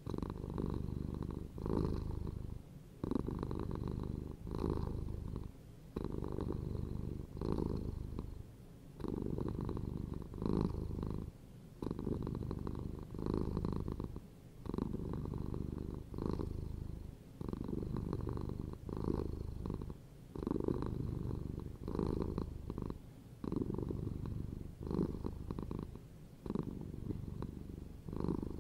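A domestic cat purring close by: a steady low buzz that pulses in cycles of roughly one and a half to two seconds, dipping briefly between breaths.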